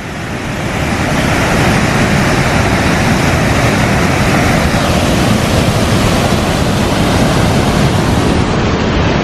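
A waterfall swollen by recent rains pours into its deep plunge pool: a loud, steady rush of water that swells in over the first second.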